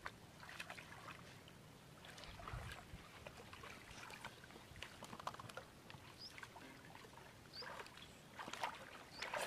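Faint sloshing and small splashes of hands groping through shallow, muddy, grassy water, with scattered soft drips and clicks.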